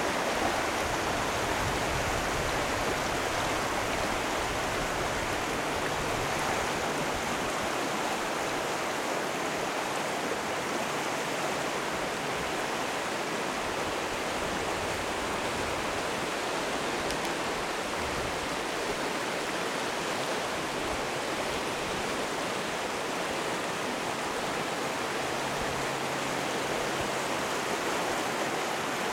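A fast mountain river rushing over rocky riffles and rapids: a steady, unbroken rush of water.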